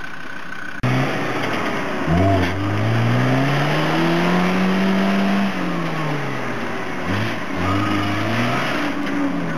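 A small 4x4's engine revved hard while stuck with its front wheels in a muddy rut. It starts abruptly about a second in, climbs in pitch for a few seconds and falls away, then revs again more briefly near the end.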